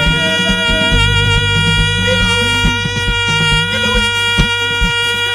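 Band music: a chord held steady over a moving bass line and a regular drum beat.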